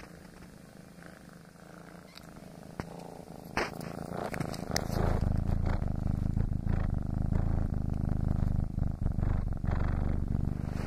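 Tabby foster kitten purring, a fast low rumbling pulse that gets much louder about five seconds in. A few brief scratchy rustles come just before the purr swells.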